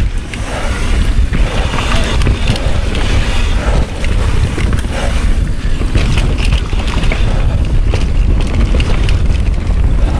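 Wind rushing over the microphone of a mountain bike's POV camera at speed, a steady low rumble, with frequent knocks and rattles from the bike running over the rough trail.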